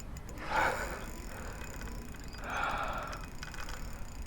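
An angler breathing hard, with two heavy breaths, while fighting a big fish on rod and reel, and a faint rapid clicking from the reel near the end.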